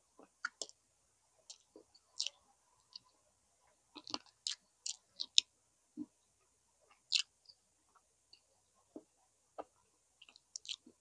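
A person eating close to the microphone: irregular wet mouth clicks and lip smacks while chewing, each one short and sharp, with the loudest about five seconds in.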